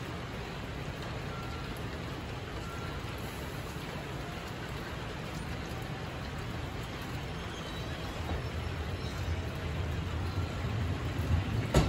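JR Central electric multiple unit starting to pull out of the station: over a steady hiss, the low hum of its motors builds from about eight seconds in, and near the end the wheels begin clicking over the rail joints.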